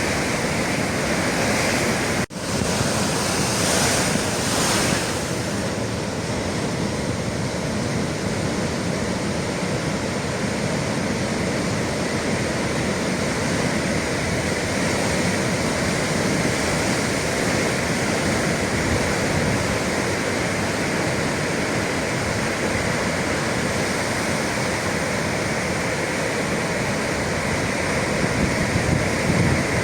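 Ocean surf: waves breaking and washing in a steady, continuous rush, briefly cutting out for an instant about two seconds in.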